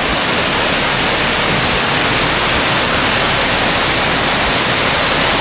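Waterfall close by, its falling water making a steady, loud rushing hiss.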